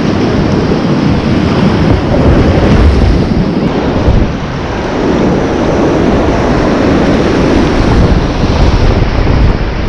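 Loud, steady rush of river whitewater and a waterfall close around a kayak, with wind buffeting the microphone; it eases briefly about four seconds in.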